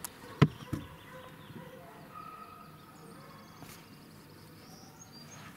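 Two sharp knocks about half a second in, then a low rumble with faint high bird-like calls.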